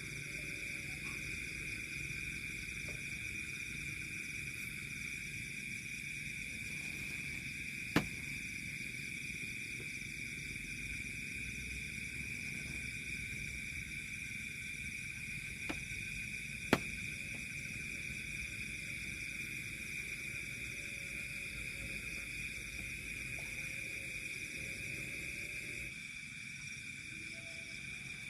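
Night insect chorus of crickets or katydids: a steady, shrill, unbroken trilling, with two sharp clicks, one about a third of the way in and one a little past halfway.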